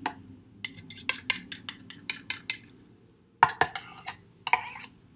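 Paring knife scraping and tapping against the inside of a plastic food processor bowl: a run of light, quick clicks, then a few louder knocks and scrapes in the second half.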